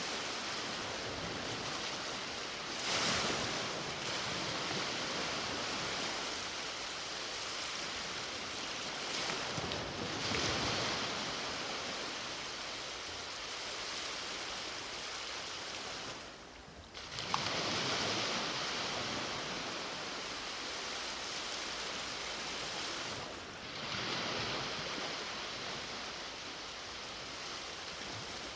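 Ocean waves breaking and washing up on a beach, a steady surf hiss that swells as each wave breaks, several times, with a brief lull about two-thirds of the way in.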